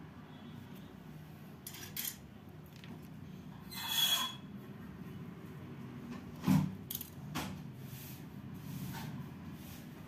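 Bench handling noises as the soldering iron and cable are picked up: a short scrape about four seconds in, a sharp knock a couple of seconds later, and a few light clicks.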